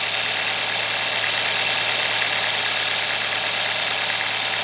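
Faulty air pressure diaphragm on an idling Audi A4 engine, making a steady high-pitched whistle with a swooshing hiss: the sign of a failed diaphragm.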